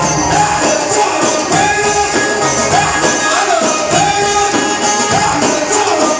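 Instrumental passage of Egyptian mawwal band music: a melody of held notes with bending ornaments over a steady percussion beat with tambourine jingles.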